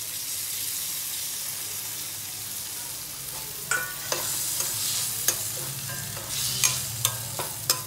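Chopped tomatoes and sliced onions sizzling in hot oil in a stainless steel kadai, a steady frying hiss. From about halfway through, a spatula stirs them, clicking and scraping against the steel pan.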